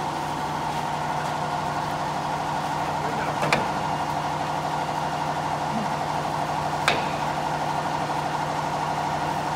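Auto-feeding CNC wood lathe running in its automatic cycle: a steady machine hum, with two short sharp knocks about three and a half seconds apart.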